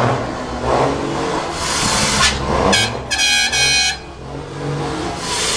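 Vehicle engines revving up and down on the road, with a horn honking about three seconds in: a quick double beep followed by a longer blast of almost a second.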